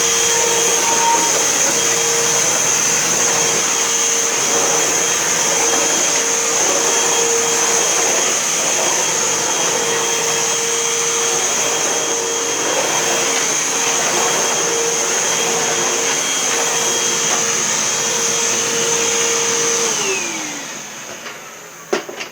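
Hoover Whole House Elite upright vacuum cleaner running steadily with a high whine. About two seconds before the end it is switched off, and its motor whine falls in pitch and fades as it spins down, followed by a few light clicks.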